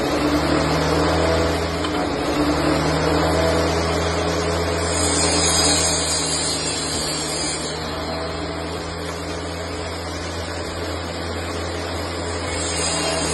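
Portable table saw running steadily while boards are fed through the blade, a constant motor hum under the noise of the cut.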